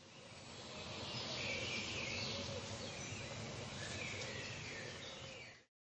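Outdoor woodland ambience: a steady background hiss with faint bird chirps, fading in over the first second and fading out shortly before the end.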